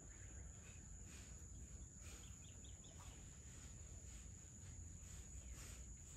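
Faint, steady high-pitched drone of insects, crickets or cicadas, from the forest at dusk, with a quick run of four or so short bird chirps a little over two seconds in, all over a low steady background rumble.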